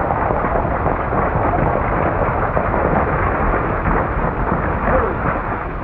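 A horse-drawn stagecoach pulled in at a gallop: a dense, continuous rumble of many hooves and rolling wheels.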